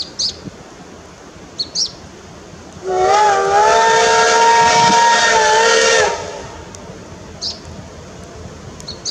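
Whistle of the CT273 steam locomotive blown in one long blast of about three seconds, several steady tones together, its pitch dipping and settling as it opens and wavering slightly just before it stops.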